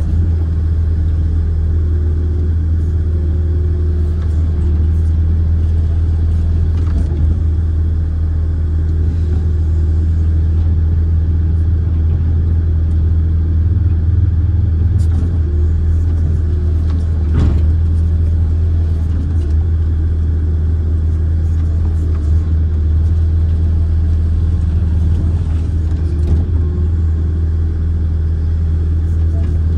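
Kobelco amphibious excavator's diesel engine running steadily, heard from the operator's cab as the boom and bucket work: a low, even drone that holds level throughout, with a single brief click about seventeen seconds in.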